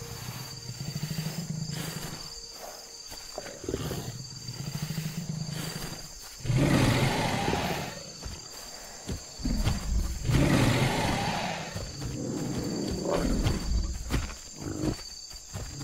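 Dinosaur roar sound effects: low rumbling growls, then two long, loud roars about six and ten seconds in, followed by more growling.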